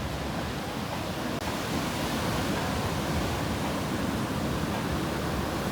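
Steady rushing noise of ocean surf breaking, growing a little brighter and hissier about a second and a half in.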